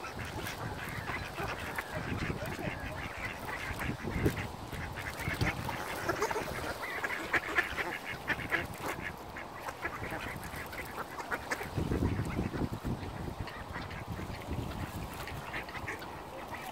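Mallard ducks quacking, a run of many short calls that is densest about halfway through.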